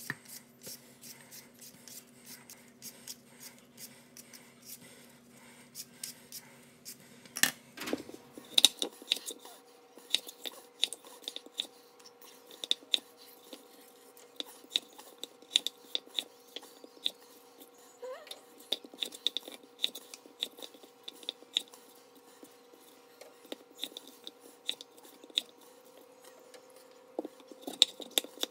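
Vegetable peeler scraping strips of skin off a raw potato in quick repeated strokes, then a chef's knife cutting through the raw potato and knocking on a wooden end-grain cutting board. The crisp cutting clicks come about twice a second, with a few louder knocks a little over a quarter of the way in.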